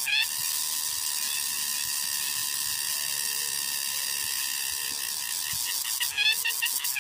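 Insects droning steadily outdoors, a continuous high-pitched buzz, with a quick run of short chirps right at the start and again about six seconds in.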